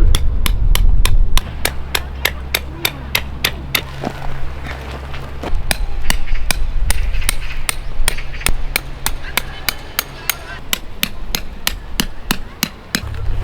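Tent pegs being hammered into the ground with a mallet: a long run of rapid, evenly spaced strikes.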